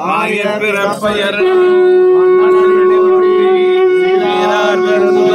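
Devotional chanting by a man's voice, then about a second and a half in a loud, steady held drone tone sets in and holds, with the chanting resuming over it near the end.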